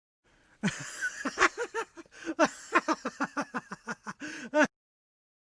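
A person laughing in a quick run of short, pitched ha-ha syllables, about three to four a second, that starts and cuts off abruptly.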